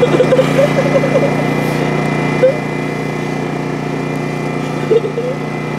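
A small engine running steadily at one constant speed, with short bits of voices and laughter over it in the first second or two and again briefly later.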